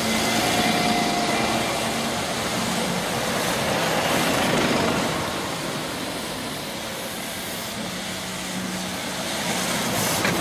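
Double-decker buses driving past close by, engine hum under the hiss of tyres on a wet road. It is loudest as a bus passes about a second in and again around four to five seconds, eases off, then rises near the end as another bus draws alongside.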